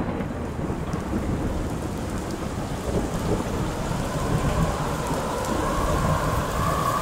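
Thunderstorm-like rumble and rain noise, a sound effect in the performance soundtrack between music sections, with a faint high tone coming in near the end.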